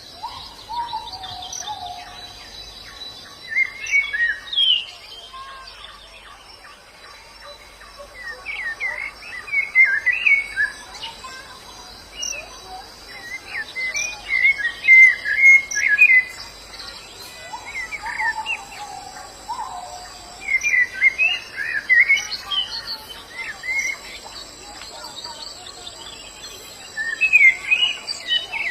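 White-eyes (pleci) twittering in clusters of quick, high chirps that recur every few seconds, with a few lower whistled notes now and then. A steady, faint, high-pitched insect drone runs underneath.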